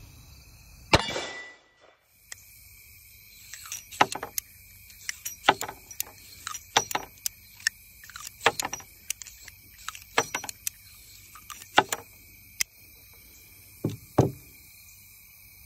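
One shot from a Ruger Super Blackhawk Hunter .44 Magnum revolver about a second in. It is followed by a long run of metallic clicks as the single-action cylinder is turned with the loading gate open and spent brass cases are punched out and drop onto a wooden table. Near the end come two knocks as the revolver is set down on the boards.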